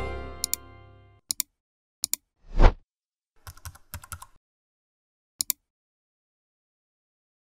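A ringing music tail fades out, then sharp clicks in quick pairs, a short loud swelling sound about two and a half seconds in, and a last pair of clicks, followed by dead silence.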